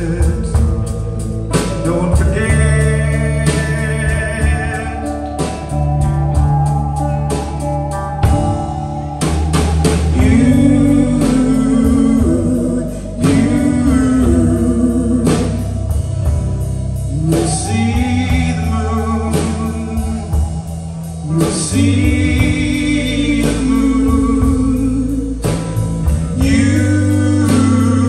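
Live band playing a passage between sung lines: drum kit, bass and guitars, with a wavering melody line coming in and out over them every few seconds.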